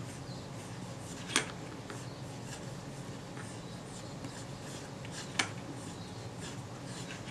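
Cotton bud scrubbing the aluminium ring of a lens, a faint scratchy rubbing with light ticks, as old grease and grime are cleaned off. Two sharp clicks come about a second in and again about four seconds later.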